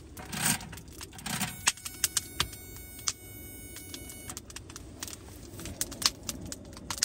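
Small metal clinks and clicks with some rustling, as gear is handled by hand.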